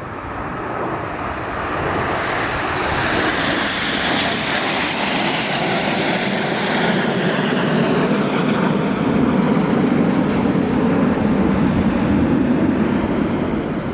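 Red Arrows formation of BAE Hawk jet trainers passing overhead: a continuous jet rush that builds in loudness, its pitch sinking lower as the aircraft go past, and it is loudest in the second half.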